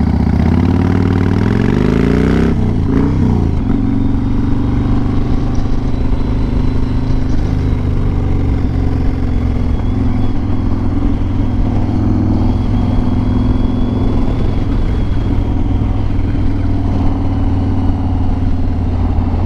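Yamaha Raider cruiser's big V-twin engine pulling hard, its pitch rising for the first couple of seconds. It then shifts up and runs on at a steady cruising speed.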